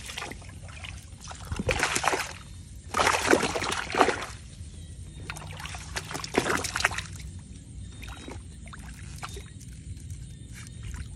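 Water splashing and sloshing in shallow water as a hand gropes inside a woven bamboo plunge-basket fish trap through its top opening. It comes in three main bursts, about two seconds in, from three to four seconds in, and around six to seven seconds in, with smaller splashes and dribbles between them.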